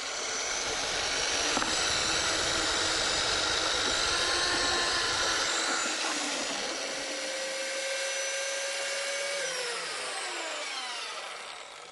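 Electric drill with a paddle mixer running steadily, stirring filler into two-part casting resin in a plastic bucket. Near the end the motor's whine falls in pitch and winds down.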